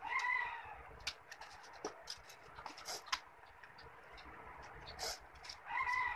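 Children's scissors snipping paper in many small, quick cuts. Two short, high-pitched calls, each about half a second, sound at the start and again near the end, louder than the snipping.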